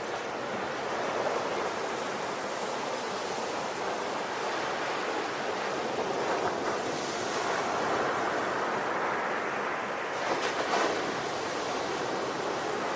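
Sea waves breaking and washing onto a shore in a continuous surf rush, swelling about seven seconds in, with a brief sharper crash near the end.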